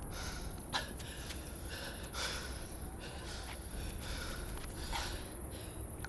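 A man breathing hard in a series of short, noisy breaths and gasps while drinking, with one sharp click about a second in.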